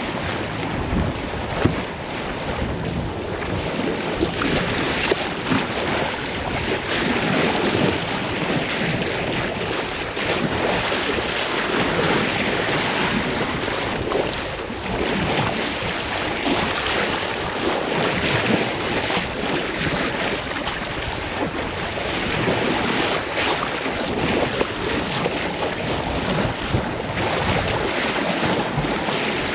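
Sailing yacht under way at sea: water rushing along the hull and waves, with wind buffeting the microphone.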